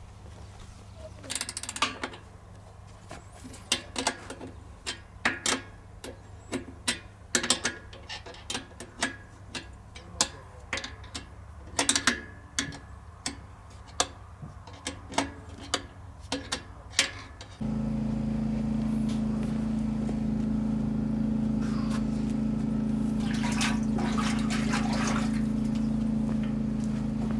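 Irregular knocks and clicks, roughly one or two a second, for about two-thirds of the time. Then an electric motor switches on suddenly and runs with a steady, fairly loud hum.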